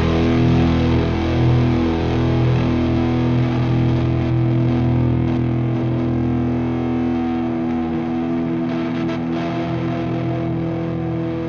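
Instrumental ending of a rock song: distorted electric guitars hold a sustained chord with effects, steady and slowly fading, with no vocals.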